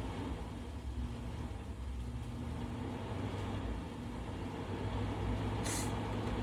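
Dell PowerEdge server running with a steady low machine hum. A short hiss comes near the end.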